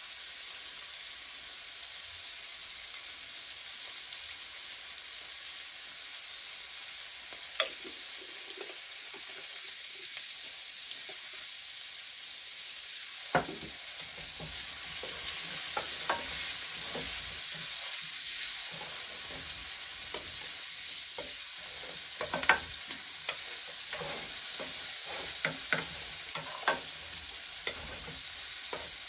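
Mixed vegetables sizzling in oil in a stainless-steel saucepan, stirred with a spoon that scrapes and knocks against the pan. The sizzle grows a little louder about halfway through, and the clicks of the spoon on the pan come thick and fast near the end.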